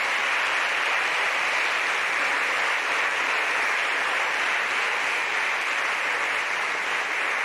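Many members of a parliament applauding together, a dense, even clapping held at a steady level.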